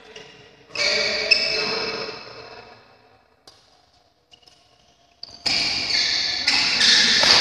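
Badminton rally in a sports hall: two sharp racket strikes on the shuttlecock in a quieter stretch, between two loud sudden bursts that echo and fade slowly. The second burst begins about five seconds in.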